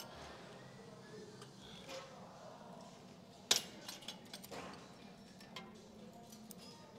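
Gym weights clinking: a few short metallic clicks and clinks, the sharpest about three and a half seconds in, over faint gym background.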